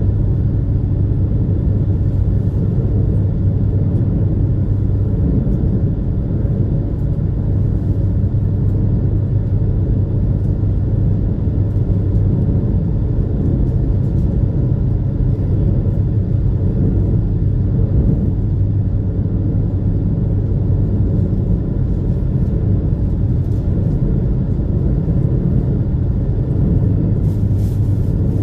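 Super Jet high-speed passenger boat under way: its engines run with a steady, deep, even drone and rumble that does not change.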